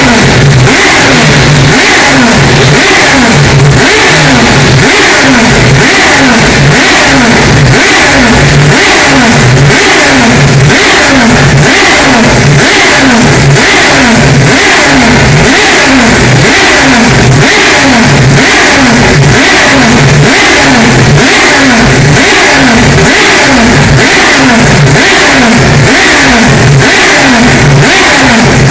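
Mazda 787B's four-rotor rotary engine revving, extremely loud and distorted, its pitch rising and dropping back in quick repeated surges, about two a second.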